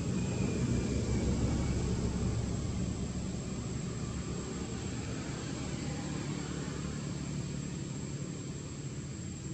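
Low, distant engine drone that swells about a second in and then slowly fades, with a thin steady high whine above it.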